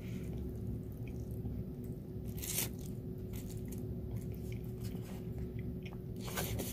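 A person slurping and chewing glass noodles (yum woon sen) from chopsticks, wet eating sounds with two louder slurps, about two and a half seconds in and near the end.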